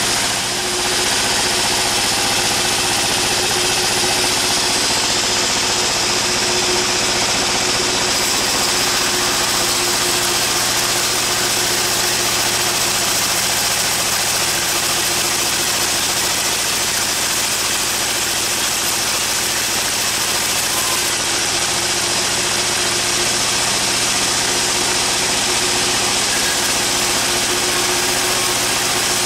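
Sawmill machinery running steadily: an engine-driven drive holding a constant speed, a continuous hum under a dense hiss, with no change across the stretch.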